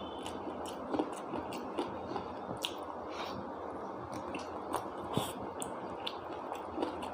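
A person chewing a mouthful of khichuri and chicken curry, with irregular small wet clicks and smacks of the mouth over a steady background hiss.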